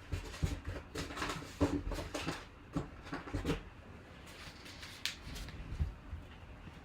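Handling noises: a quick series of short knocks and rustles over the first three and a half seconds, then one more sharp click about five seconds in.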